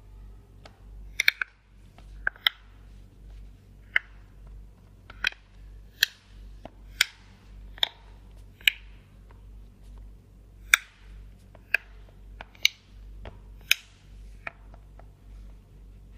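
Plastic snap-clips of a Samsung Galaxy Tab 3 tablet's case clicking into place one after another as the back cover is pressed shut by hand around the edge. Sharp clicks at irregular spacing, mostly about a second apart, some in quick pairs, some louder than others.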